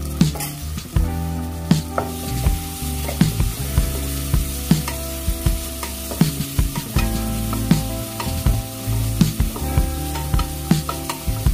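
Chopped tomatoes and onions sizzling in hot oil in a nonstick pot while a wooden spatula stirs them, knocking and scraping against the pan many times at an uneven pace. The sizzle grows stronger about two seconds in.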